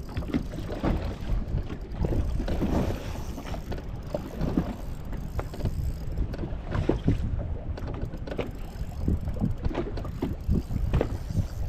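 Wind buffeting the microphone on an open fishing boat, with water slapping irregularly against the hull.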